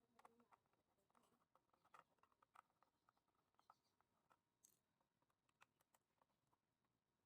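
Faint, irregular clicks and light taps of electric-iron parts being handled and fitted back together during reassembly. They come thickest in the first few seconds and thin out towards the end.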